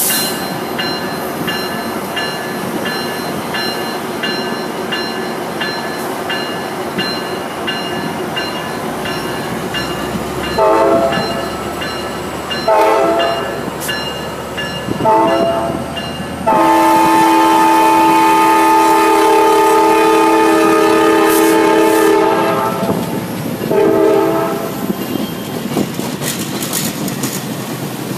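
EMD F59PH diesel locomotive departing and rolling past, with a steady engine and wheel-on-rail noise and a bell dinging steadily. The multi-chime air horn then sounds three short blasts, one long blast of about six seconds and one more short blast for the grade crossing ahead.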